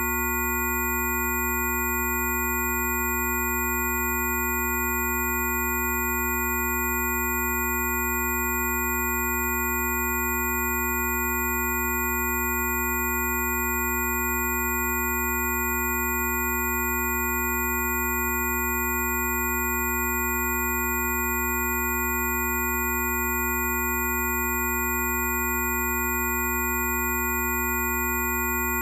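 Several steady electronic pure tones sounding together as one unchanging drone, from a deep low tone up to high whistling ones.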